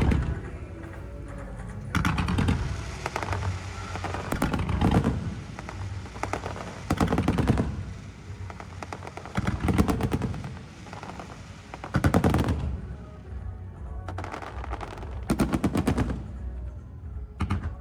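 Aerial fireworks bursting in quick volleys of rapid bangs and crackle, a new volley about every two to three seconds.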